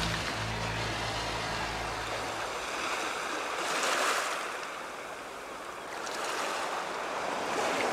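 Waves washing, rising to a swell about halfway through and again near the end. A low hum fades out in the first couple of seconds.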